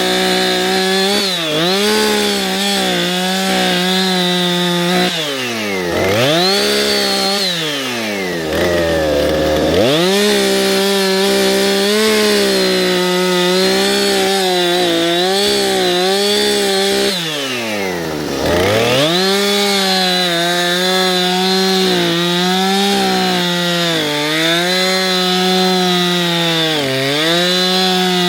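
Small two-stroke engine of a handheld landscaping power tool running at high throttle. It drops toward idle and revs back up twice, about five seconds in and again near eighteen seconds.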